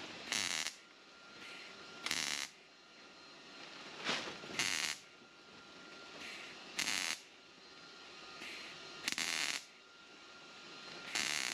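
MIG welder stitch-welding thin sheet metal in the rear-window channel of a 1968 Mercury Cougar: seven short bursts of crackling arc, about every two seconds, each a tack weld, with a faint steady hiss between them.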